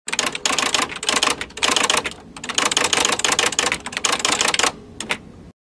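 Typewriter sound effect: rapid clacking keystrokes in quick runs, broken by short pauses. Near the end come two single strokes, and then it cuts off suddenly.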